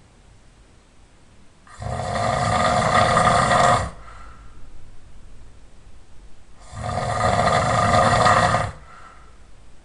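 A person snoring loudly: two long snores about five seconds apart, each lasting about two seconds and trailing off into a quieter breath.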